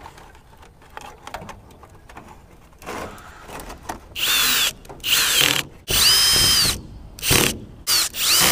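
Kobalt cordless drill/driver driving screws into an aircraft's tail tip fairing, run in about five short bursts in the second half, its motor whine rising and falling with each burst. Before that, light handling clicks.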